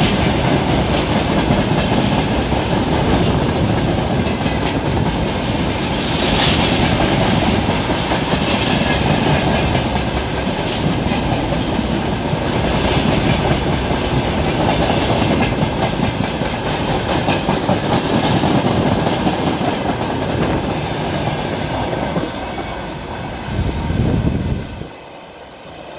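A freight train's wagons rumbling and clattering past close to an open window of a moving passenger train, with the wheels clicking over rail joints. The noise drops off sharply near the end as the last wagon goes by and the view opens up.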